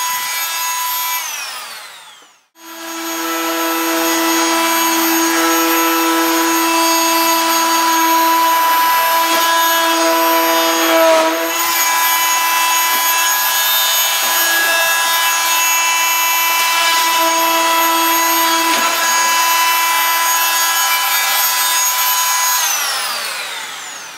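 Rockwell Sonicrafter oscillating multi-tool running with a steady whine as its blade cuts quarter-inch-wall acrylic tubing. It winds down and stops about two seconds in, starts again a moment later, and winds down again near the end.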